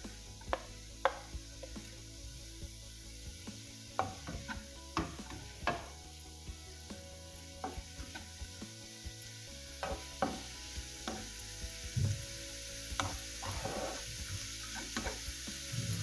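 Spatula scraping coconut paste off a cutting board into a nonstick frying pan, then knocking and scraping against the pan at irregular moments while grated papaya and the paste are stirred together. A faint steady sizzle runs underneath.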